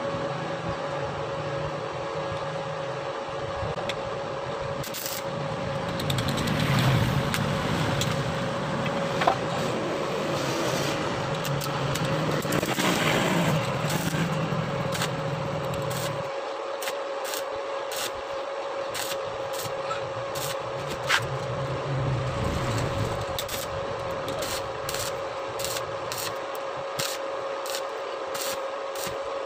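Stick (electric arc) welding on a leaking motorcycle exhaust pipe: a steady hum and background noise while the rod is fitted, then the arc crackling in quick irregular snaps near the end as the weld is struck.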